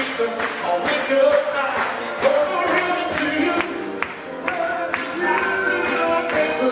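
Male vocal group singing a Motown song live over backing music with a steady beat.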